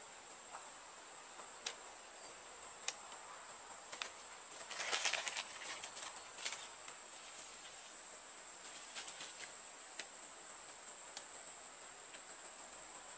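A steady high-pitched insect drone in forest, with a few sharp clicks and knocks scattered through it as a man works by hand at a bamboo frame. A short burst of rustling, the loudest sound, comes a little before the middle as he moves about on the leaf litter.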